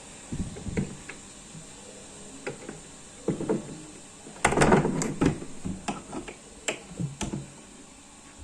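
A string of irregular knocks, clicks and thumps, busiest about halfway through.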